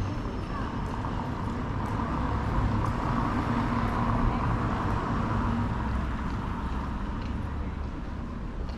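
Steady city traffic noise, growing louder for a couple of seconds in the middle.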